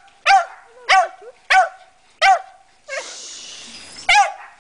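Small dog barking, five short high-pitched barks, the first four about two-thirds of a second apart and the last after a pause. A rustling noise fills the pause about three seconds in.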